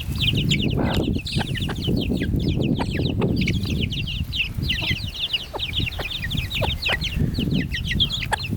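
Baby chicks peeping constantly in quick, high, falling notes, over a mother hen's low clucking. A few sharp taps are scattered through it.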